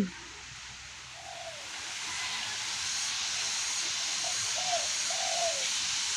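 A steady high-pitched hiss that swells over the first three seconds and then holds, with a few faint short falling calls beneath it.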